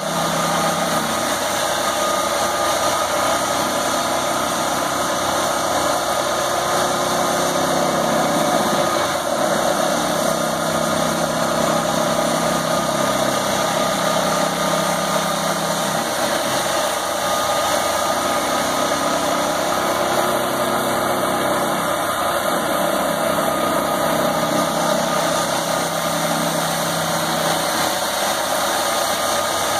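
Heavy diesel machinery running steadily: a tracked aggregate-pier (Geopier) rig and a compact track loader, with a constant droning hum. A lower engine note swells and fades every few seconds as the loader works.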